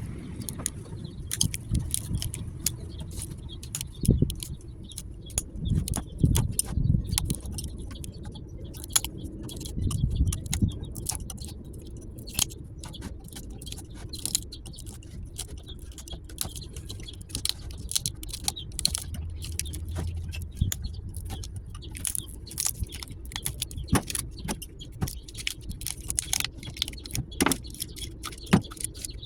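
Irregular metallic clinking and knocking as metal scrap parts are handled, with several heavier thumps in the first ten seconds over a steady low hum.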